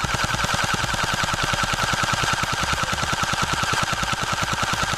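Unlocx 4-in-1 electric gel ball blaster firing fully automatic: a continuous rapid stream of shots at about eleven a second, with the motor and gearbox whining steadily underneath.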